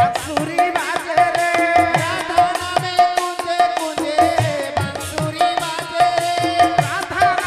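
Devotional kirtan music: an electronic keyboard holding steady notes over fast, evenly repeating hand-drum and percussion strokes.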